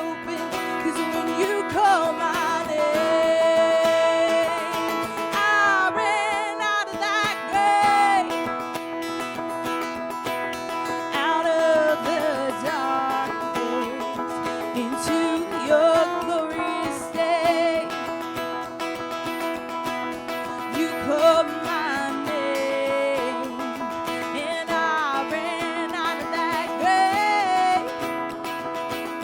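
Church worship music led by acoustic guitar, with a wavering melody line over steady sustained chords.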